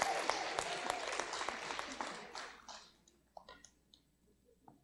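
Audience applauding, dense clapping that dies away about three seconds in, leaving a few last scattered claps.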